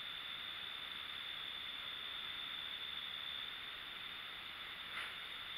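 Quiet, steady hiss of the recording's background noise with a thin, high, steady whine running through it, and a faint brief sound about five seconds in.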